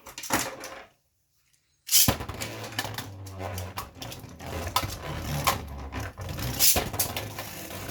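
Two Beyblade Burst tops spinning and clashing in a plastic stadium: a sudden start about two seconds in, then a steady whir with many sharp clacks of hits.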